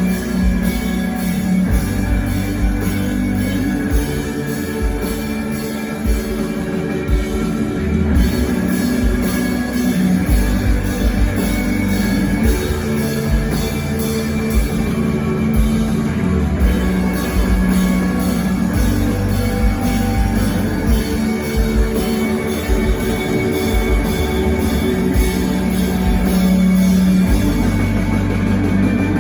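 Live instrumental post-rock band playing: layered electric guitars held over bass and steady drumming, loud and continuous.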